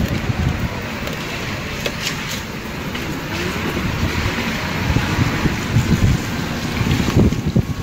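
Motor scooter ride on a city street: the scooter's engine and road noise under a low, gusty rumble of wind on the microphone, going on steadily.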